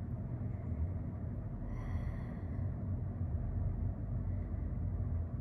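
Steady low background hum, with a brief faint high-pitched sound about two seconds in.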